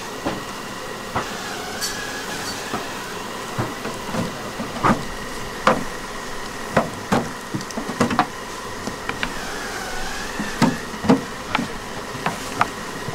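Wooden beehive frames knocking and clacking against the hive boxes as they are lifted out and brushed free of bees: a dozen or so irregular knocks, with the steady hum of bees behind.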